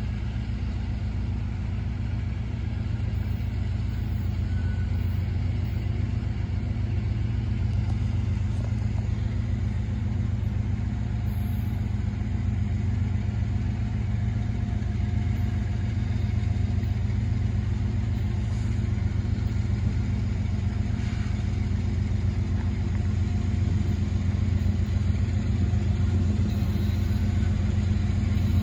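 Diesel locomotives of a Norfolk Southern intermodal freight approaching from a distance: a steady low engine rumble that grows slowly louder.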